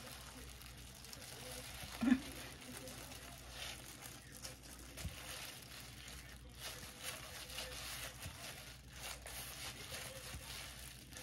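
Disposable plastic gloves crinkling and rustling as hands roll and press a gimbap of seaweed and filling on a wooden cutting board, with one louder thump about two seconds in.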